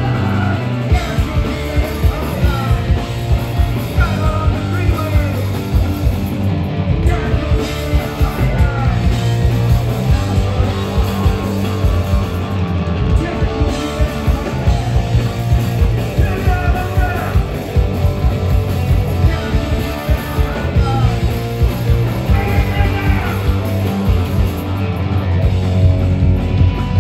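Punk rock band playing live: distorted electric guitar, bass guitar and fast drums, with a singer shouting the vocal into a microphone.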